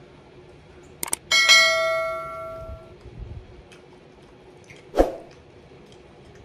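Two quick clicks, then a bell-like ding that rings out and fades over about a second and a half; a single knock comes about five seconds in.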